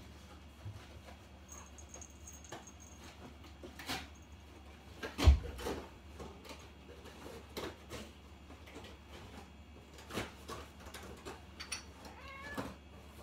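A door bangs shut once, a sharp knock with a deep thump about five seconds in. Lighter scattered clicks and knocks come and go around it.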